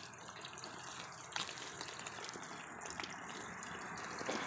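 Steady flowing, splashing water from the backyard pond's filter waterfall and streams, with one small click about a second and a half in.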